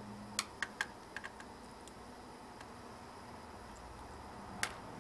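Small sharp clicks and taps of a screwdriver working the tiny screws that hold a laptop's graphics card: a quick cluster of five or six in the first second and a half, then one louder click near the end.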